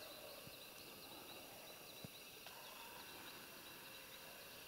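Near silence: faint outdoor ambience with soft, high chirps repeating about twice a second.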